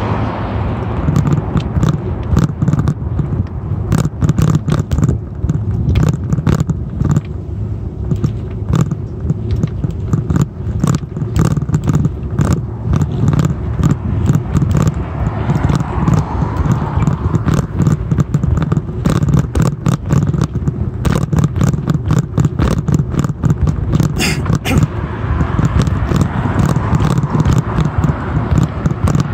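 Bicycle rolling along a concrete sidewalk, heard from a phone mounted on the bike: a steady rumble with constant rapid rattling and knocking from the bike and mount.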